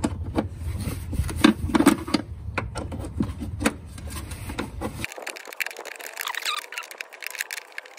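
Adjustable wrench clicking and knocking against a hood strut's lower mounting bolt as the crusty bolt is turned out, many short metallic clicks in a row. A low rumble underneath stops abruptly about five seconds in, leaving fainter clicks.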